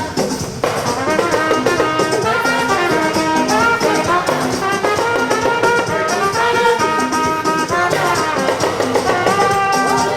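Music led by brass horns over a repeating bass line.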